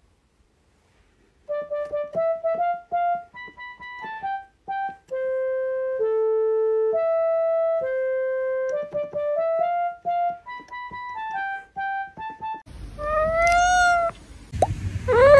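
A simple one-note-at-a-time melody played on a Yamaha PSS-170 portable keyboard, starting about a second and a half in. Near the end the keyboard stops and a cat meows, rising then falling in pitch.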